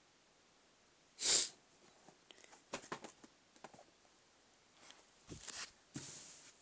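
Handling noise from a tablet being moved while it records: a short breathy burst about a second in, then scattered clicks and rustles, and a couple more rustling bursts near the end.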